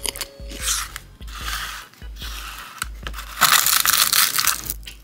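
Close-up crunching and crackling of crumbly bread and soft food being crushed and pulled apart by fingers, in several bursts, the loudest lasting over a second from about three and a half seconds in.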